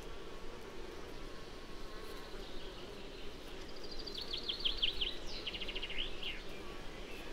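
Insects such as bees and flies buzzing steadily over flowering meadow plants. About halfway through, a songbird sings one short phrase: a run of high notes going into a fast trill and ending in a couple of falling notes.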